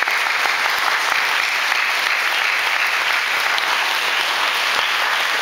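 Audience applauding, a dense and even clapping that holds steady.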